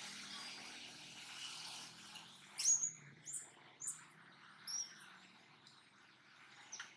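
Capuchin monkey giving a series of short, high-pitched chirps, about five over four seconds, the first the loudest, over a faint steady hiss.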